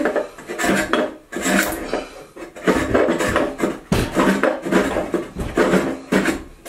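Block plane taking a series of short, quick strokes across the edge of a hard maple board, the blade scraping the hard wood as it skims off saw burn marks.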